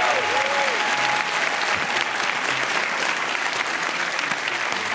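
Studio audience applauding steadily, a dense wash of many hands clapping.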